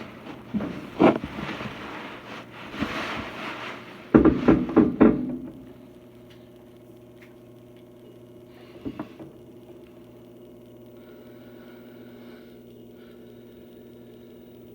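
Several seconds of loud irregular knocks and rustling handling noise, then from about six seconds in a Samsung washing machine running with a steady low mechanical hum.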